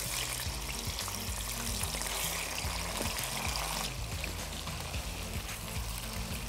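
Raw chicken pieces sizzling as they go into hot oil in a karahi and are stirred with a spatula; the sizzle eases off about four seconds in. Background music plays under it.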